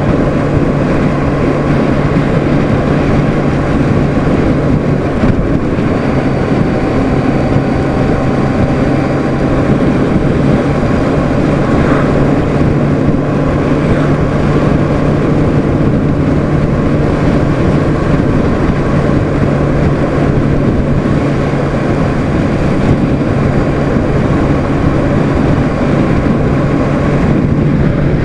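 Honda CBR600RR inline-four engine holding a steady, relaxed cruise, its tone dropping out briefly about five seconds in, mixed with steady wind noise from riding at speed.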